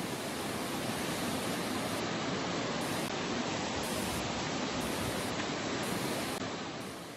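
A shallow creek running over rocks: a steady rush of water that fades out near the end.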